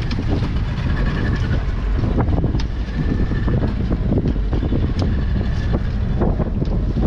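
Fishing boat's engine running steadily, with strong wind buffeting the microphone and scattered sharp knocks throughout.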